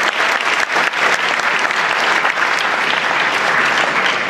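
Audience of a full house applauding steadily, a dense patter of many hands clapping.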